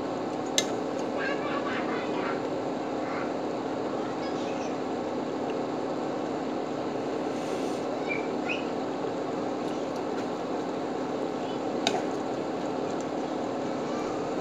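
Galunggong fish simmering in adobo sauce in a wide pan: a steady bubbling hiss over a low hum. A metal ladle clinks sharply against the pan about half a second in and again near the end.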